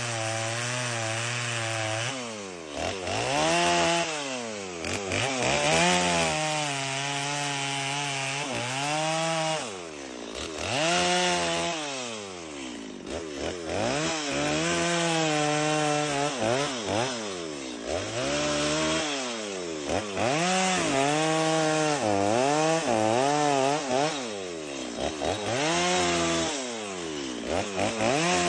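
Holzfforma G255 two-stroke petrol chainsaw idling low, then revving up and cutting wood over and over, its engine pitch rising and sagging under load every couple of seconds.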